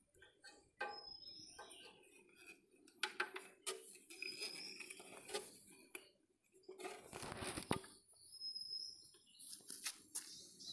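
Light metallic clinks and knocks from hands handling the stopped Greaves diesel engine at its starter pulley, with a longer rustling scrape about seven seconds in. A bird gives a short high chirp every few seconds.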